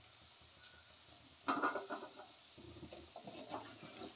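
Wooden spatula scraping fried taro root slices out of an aluminium kadhai onto a steel plate: a sudden burst of clatter about one and a half seconds in, then scattered lighter scrapes and taps.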